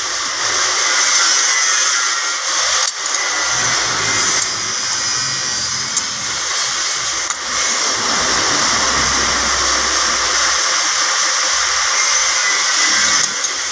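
Steady, loud rushing hiss of moving air, briefly dipping about three seconds in and again a little after seven seconds.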